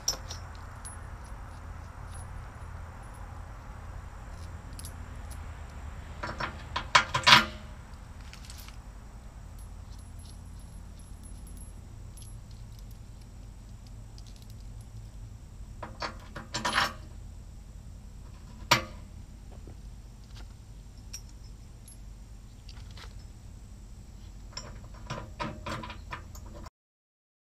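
Steel grab-hook mount plates, bolts and nuts clinking and jangling as they are handled, in a few short clusters of sharp metal clinks: the loudest about seven seconds in, more around sixteen seconds, a single clink a couple of seconds later, and a few near the end.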